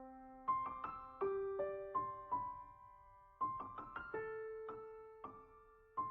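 Soft solo piano music: a slow melody of single notes, each struck and left to fade.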